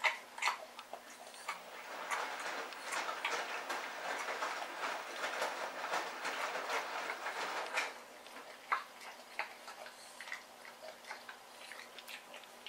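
Chinese Shar-Pei puppy chewing raw chicken ribs: a run of wet crunching clicks from its jaws, densest from about two to eight seconds in, then thinning to scattered clicks.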